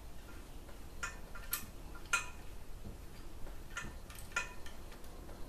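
A handful of light, scattered clicks as a nut and washer are threaded by hand onto a toilet's floor bolt at the base of the porcelain bowl.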